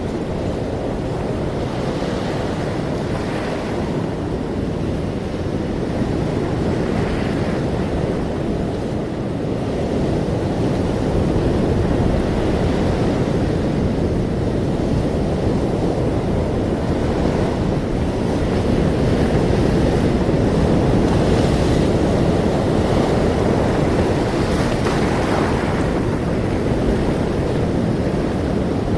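Ocean surf: a steady low wash of waves that swells and eases slowly, growing louder past the middle.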